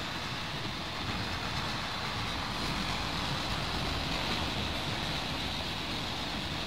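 Freight train of autorack cars rolling past: a steady rumble and hiss of steel wheels on the rails.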